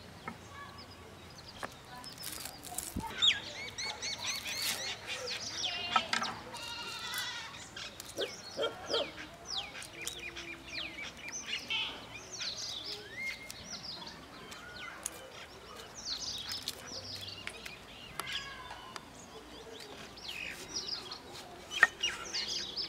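Birds chirping and calling throughout, with a few sharp knocks of a steel cleaver on a wooden chopping board, the loudest a little before the end.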